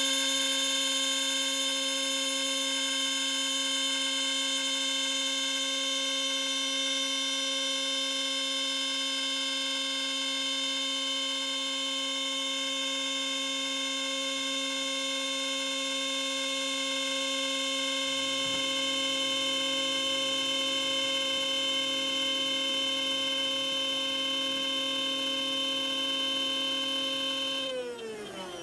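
CNC router spindle with a half-inch spiral bit running at a steady high-pitched whine through a deep 2-inch cut. Near the end the spindle winds down, falling in pitch, as the cut is stopped because the bit was overheating and smoking.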